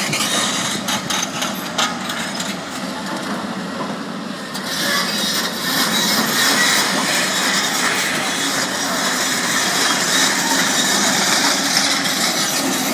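A demolition excavator's hydraulic shear crushing and breaking up building concrete, a harsh crunching din that grows louder about four and a half seconds in.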